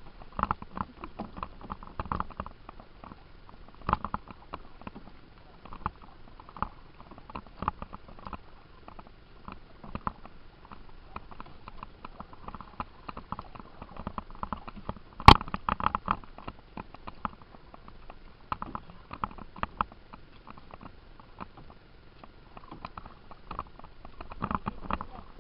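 Canoe paddling: paddles dipping and splashing and knocking against the hull of a plastic Discovery 158 canoe, an irregular scatter of light knocks. One much sharper, louder knock comes about halfway through.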